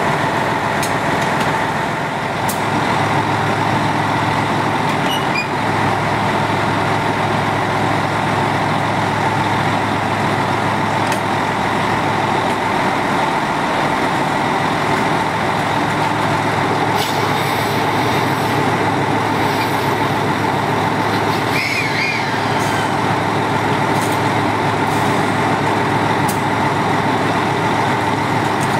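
KiHa 201 diesel railcar standing coupled to a 731 series electric train, its engine idling steadily, with a few light clicks.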